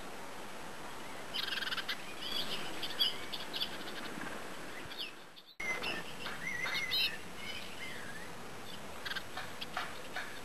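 Blue tit calls: a run of high, thin chirps and short trills, cutting out abruptly for a moment about five and a half seconds in.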